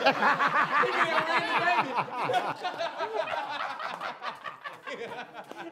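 A group of people laughing together at a joke, loudest in the first two seconds and dying down toward the end.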